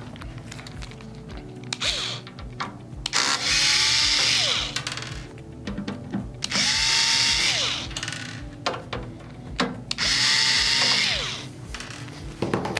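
Cordless drill driver running in three bursts of about a second and a half each, its pitch rising briefly as each starts, backing Phillips screws out of the processor's sheet-metal lid.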